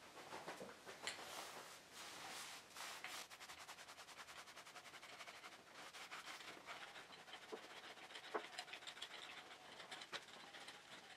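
Small foam paint roller rolling a coat of finish onto a wooden tabletop: faint rubbing with a quick, even run of ticks, plus a few light clicks.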